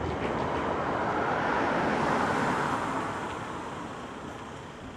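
A car driving past close by, its tyre and engine noise swelling to a peak about two seconds in, then fading as it moves off down the road.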